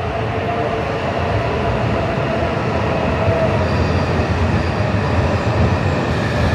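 Coupled E6-series Komachi and E5-series Hayabusa shinkansen pulling slowly into the station, Komachi cars first. A steady rolling noise carries a steady whine, growing slightly louder as the cars pass.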